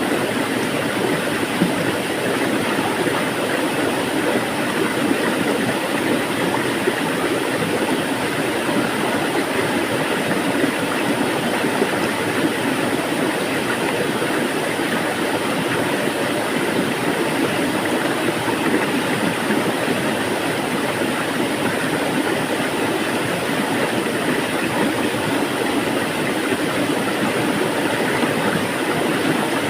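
Water flowing steadily, an even rushing sound that does not change.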